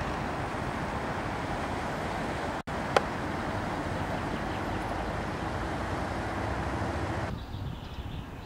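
Steady outdoor background noise, broken by a brief dropout and a sharp click about three seconds in, then dropping to a quieter hush about seven seconds in.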